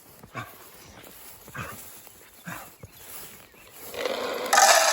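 Dry dog food kibble poured from a bag into a bowl, a loud rattling rush starting about four seconds in. It follows a few short soft sounds.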